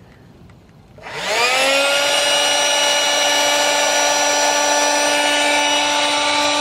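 Electric air pump switched on about a second in, its motor winding up to speed and then running steadily as it inflates an inflatable kayak through its valve.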